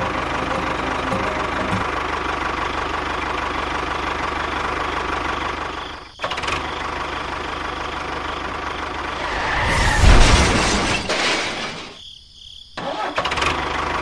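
Steady engine-like running drone for a miniature model tractor. It breaks off briefly about six seconds in, swells louder around ten seconds, and drops out for a moment just after twelve seconds before resuming.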